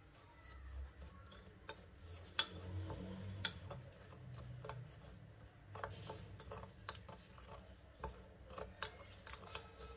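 A metal spoon stirring thick powdered-sugar glaze in a ceramic bowl, scraping and clinking against the bowl in irregular ticks. The sharpest clinks come about two and a half and three and a half seconds in.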